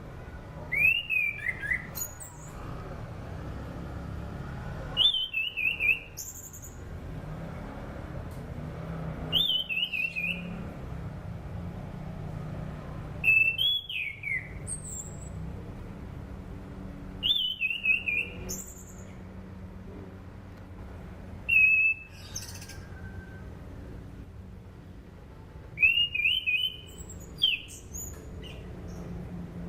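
Anis cendana (orange-sided thrush) singing: short phrases of quick, bending whistled notes, one about every four seconds. A steady low hum lies beneath.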